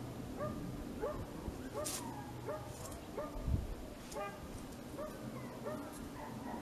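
A dog yipping in a steady series of short, hooked calls, about two a second, with a dull thump about three and a half seconds in.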